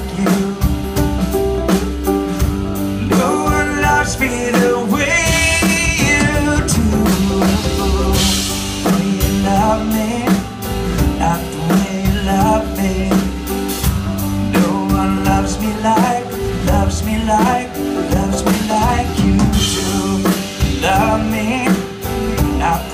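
Live rock band playing: a drum kit keeps a steady beat under guitars, bass and a male lead vocal.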